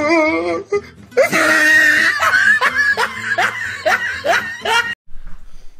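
A person laughing hard: a wavering laugh, then from about a second in a loud run of rising 'ha' bursts, about three a second, that cuts off abruptly near the end.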